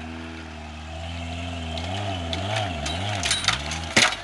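Mud buggy's engine revving hard, its pitch rising and falling as the tires spin up a dirt bank, with more and more sharp clicks of flung dirt and stones. About four seconds in comes a single sharp, loud bang: the drive shaft breaking.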